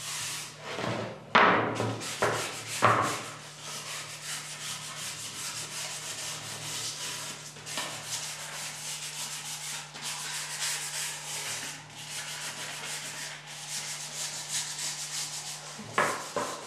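Bentwood rings of a Thonet-style rocking chair being sanded by hand: a quick, steady scratching of abrasive on the wood. A few louder wooden knocks, as the rings bump the bench, come about a second in, twice more soon after, and again near the end.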